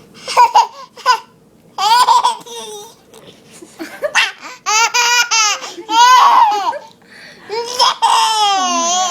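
A young child laughing hard in a string of high-pitched bursts, some short and some held for about a second with a wavering, squealing pitch.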